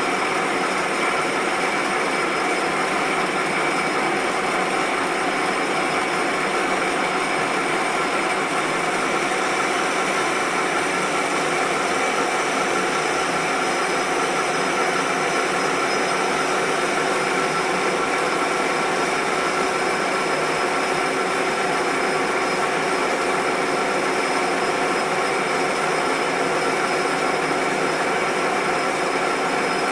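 Metal-turning lathe running steadily, its gearbox giving a constant whine of several tones, while the cutter faces the end of a workpiece under automatic feed.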